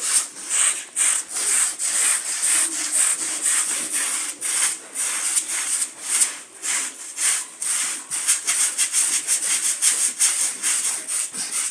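A carpet being scrubbed by hand in steady back-and-forth strokes, a rough rubbing scrape, with the strokes coming faster in the second half.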